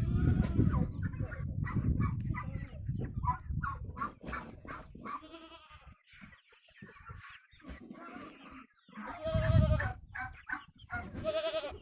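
Goats bleating for food, with two long bleats in the second half, and hens clucking around them.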